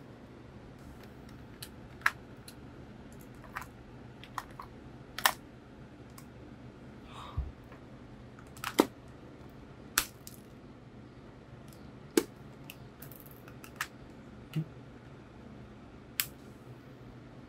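Sharp plastic clicks and taps from a Sony WM-FS495 Walkman's casing and cassette door being handled and fitted together: about a dozen clicks at irregular intervals, a few of them much louder than the rest.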